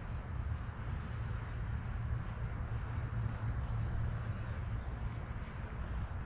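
Steady low outdoor rumble with no distinct events, and a faint thin high whine held above it.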